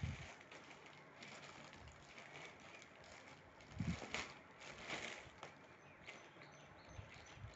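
Plastic courier mailer bag crinkling and rustling as it is pulled open by hand, with a few louder crinkles about four and five seconds in.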